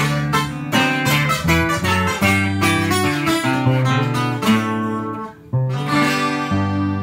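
Acoustic guitars strumming chords over an electric bass guitar, an instrumental passage without singing. The playing drops out for a moment about five seconds in, then chords ring on.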